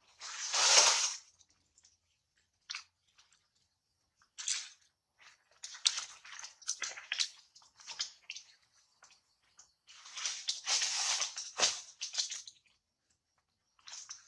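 Leafy tree branches rustling and crackling in irregular bursts as a young monkey climbs through them. The longest bursts come about a second in and again about two-thirds of the way through.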